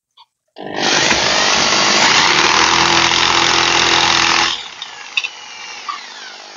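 Electric drill with a No. 6 bit boring a fixing hole into the wall through a switch plate. It starts about half a second in and runs at full speed for about four seconds, then is let off and winds down with a falling whine.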